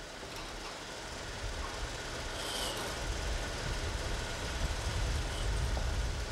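Diesel engine of a 70-ton crane running with a low rumble that grows steadily louder, and a brief high squeak about two and a half seconds in.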